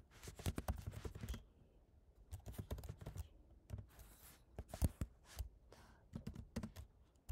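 Computer keyboard being typed on: quick runs of key clicks with short pauses between them as a terminal command is entered.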